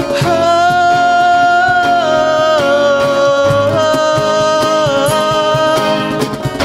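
Live acoustic Sindhi folk song: a man sings long held notes that bend in pitch now and then, over strummed acoustic guitar and steady cajon beats.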